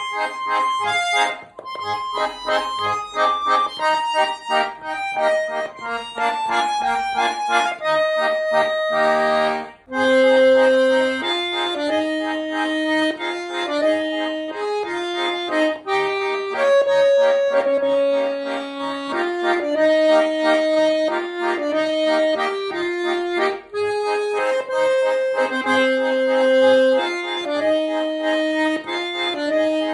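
Schwyzerörgeli (Swiss diatonic button accordion) playing a lively Swiss folk tune. Quick running melody notes give way, after a brief break about ten seconds in, to slower held melody notes over chords.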